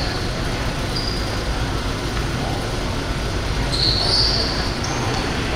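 Sneakers squeaking on a gym floor during basketball play: a short squeak about a second in and a longer run of squeaks near the end, over a steady wash of gym noise.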